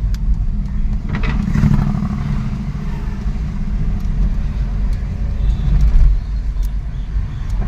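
VW Polo GT TSI driving on a test drive, a steady low rumble of engine and road noise.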